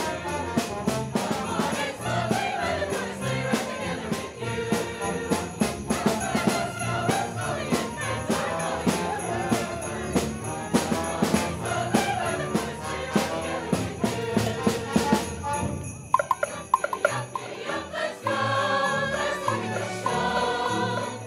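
Holiday music played live, with sleigh bells shaken steadily on the beat. About three-quarters of the way through the bells stop and the music thins to a few short notes before the ensemble comes back in.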